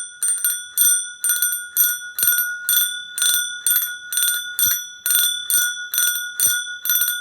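Bicycle bell rung over and over, about two dings a second, each strike ringing on with a bright, high metallic tone that carries into the next.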